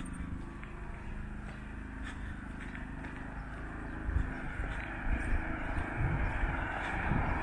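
A vehicle approaching on the road, its engine and tyre noise growing steadily louder over the last few seconds, with faint footsteps of someone walking.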